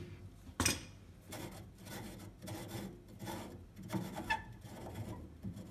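Boiler's automatic air vent being unscrewed by hand, its threads rasping and rubbing in short irregular strokes, with one sharp click about half a second in.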